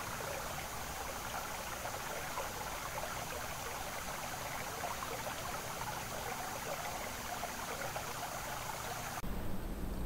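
Shallow stream water trickling steadily. It cuts off abruptly about nine seconds in, leaving a fainter low background.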